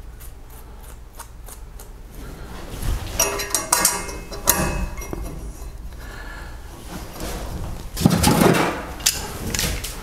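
Clinks and rattles of small metal fittings and a hand tool being handled at a brass shower valve body, with faint ticks at first, a busier stretch about three to five seconds in, and a louder clatter about eight seconds in.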